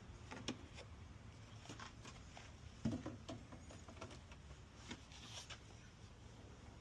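Faint handling noise as motor oil is poured from a plastic bottle into the engine's filler: scattered light clicks and knocks, the loudest about three seconds in, with a brief hiss near the end.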